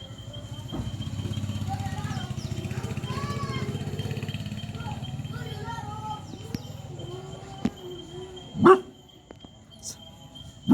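A dog barks sharply once near the end, over a steady low hum and a thin steady high tone, with a few arching pitched calls a few seconds in.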